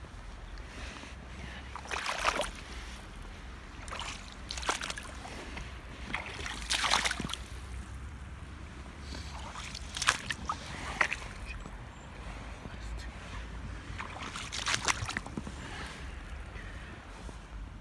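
Rubber wellington boots wading through shallow muddy water: a splash and slosh every couple of seconds, at an uneven pace. A low steady rumble runs underneath.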